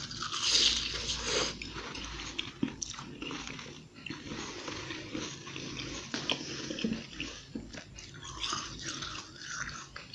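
Close-miked biting and chewing of flaky frozen ice, a loud crunch in the first second and a half followed by crackly chewing, with another spell of crunching near the end.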